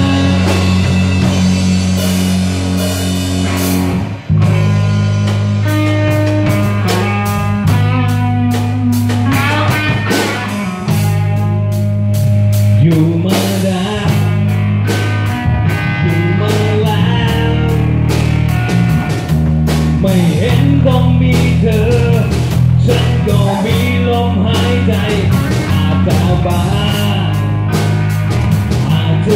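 Rock band playing a loud instrumental passage: electric guitar lead with bending notes over bass guitar and drum kit, with a brief break about four seconds in.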